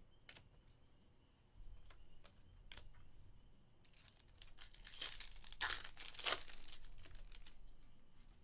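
Chrome trading cards being handled: a few light clicks as cards are set down on a stack, then a few seconds of rustling as cards slide against each other, loudest about five to six and a half seconds in.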